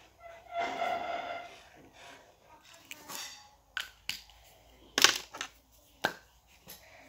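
Highlighter marker being handled: a brief squeak about half a second in, then about five sharp plastic clicks of its cap being pulled off and snapped back on, the loudest about five seconds in.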